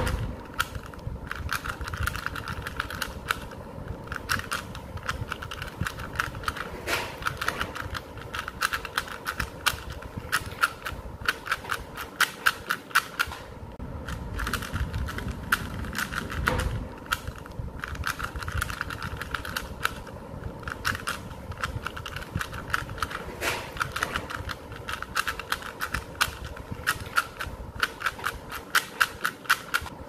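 3x3x3 Rubik's cube's plastic layers clicking and clacking as they are turned rapidly by hand in finger-trick runs of PLL algorithms. The clicking is fast and nearly continuous, with a few brief pauses between runs.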